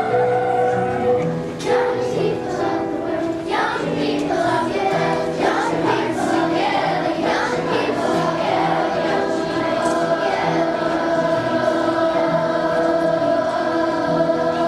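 Two young girls singing a song together with musical accompaniment, settling into long held notes over the second half.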